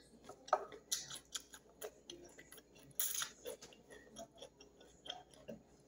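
Faint, irregular wet clicks and smacks of a person chewing a mouthful of sun-dried beef (carne do sol) and cabbage salad, with one short hissing burst about three seconds in.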